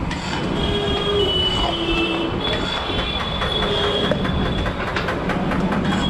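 Long metal spatulas scraping across a giant 50 kg tawa as a big mound of naanchap mixture is stirred. The metal gives off held, high squeals that shift in pitch, and scraping clicks come thicker in the second half. A steady low hum runs underneath.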